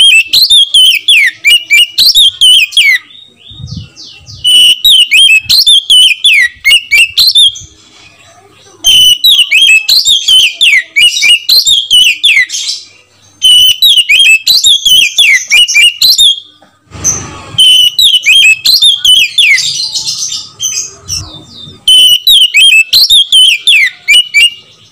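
Oriental magpie-robin (kacer), a male, singing loudly in full song: rapid, varied whistled phrases with quick rising and falling notes, delivered in bursts of about three seconds with short pauses, about six bursts in a row.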